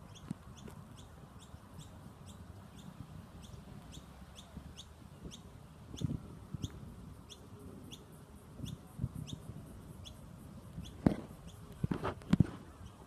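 A bird chirping over and over, short high chirps about two or three a second, over a low steady rumble. A few sharp knocks stand out near the end.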